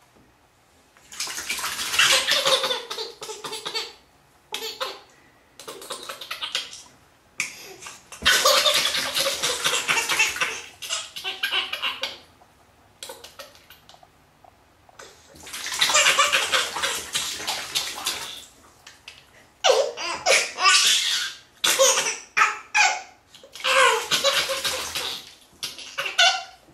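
A baby laughing hard and splashing the bathwater, in spells of a few seconds with short pauses between.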